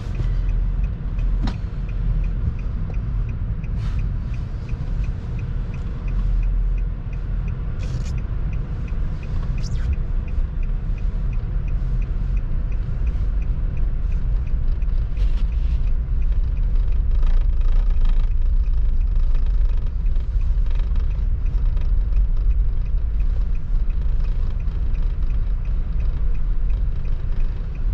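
Car driving through deep snow, heard from inside the cabin: a steady low rumble of engine and tyres, with a faint regular ticking and a few short clicks.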